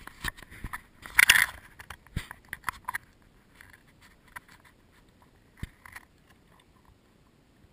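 Scraping and clicking handling noise from a camera being moved close to the ground, with one louder scrape about a second in. After that it is mostly quiet, with a few scattered faint ticks.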